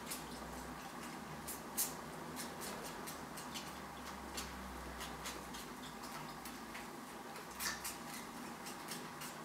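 Kittens suckling from a nursing Somali cat: irregular soft clicking and smacking sounds, with a sharper click just under two seconds in and another near the end.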